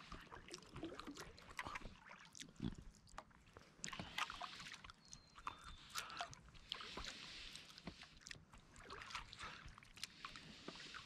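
Kayak paddle dipping into and pulling through calm river water, with swells of splashing every few seconds and many small drips and ticks in between.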